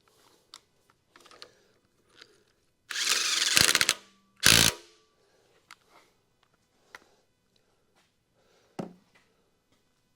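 A power tool, likely an impact wrench, rattles in a rapid burst of about a second, then fires a second short burst a half second later, with scattered small clicks and knocks of tools around it.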